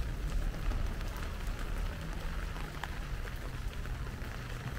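Heavy rain falling, with many individual drops ticking close by over a steady low rumble.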